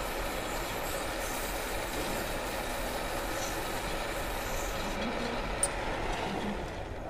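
Lathe running with emery paper wrapped on a slotted rod sanding the inside of a gear's bore, a steady grinding hiss, used as a finishing pass to take the bore from undersize up to size. The hiss thins about five seconds in and the whole sound fades near the end.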